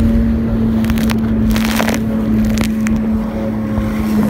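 Jet ski engine running at a steady pitch at speed over choppy water, with a few bursts of splashing spray about two seconds in.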